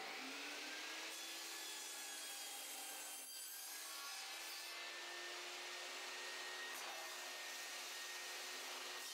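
Table saw running with a steady whine as a thin wooden shim is cut on a sled jig, with no riving knife or blade guard fitted; the sound dips briefly about three seconds in as the blade takes the cut. The shim drops into the riving-knife slot and catches the blade, the start of a kickback.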